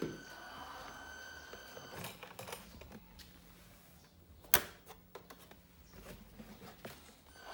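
A single sharp click about four and a half seconds in as the hinged tailgate of a model truck's flatbed is handled, over a faint steady hum.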